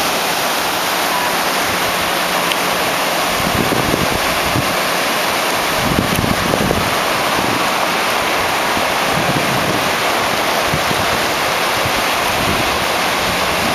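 Ocean surf breaking and washing up the beach in a steady rush, with wind gusting against the microphone from a few seconds in.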